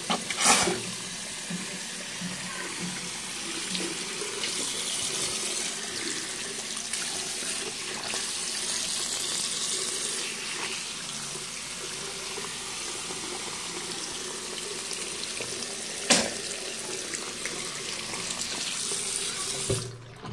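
Water running from a mixer tap into a bathroom sink and splashing over hands held in the stream. A sharp knock sounds about half a second in and another late on, and the flow stops right at the end as the tap is turned off.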